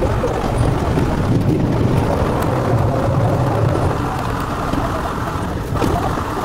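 Toronto subway train rolling along the track, heard from inside the lead car: a steady low rumble of wheels on rails and running gear as the train leaves the tunnel for an open-air stretch.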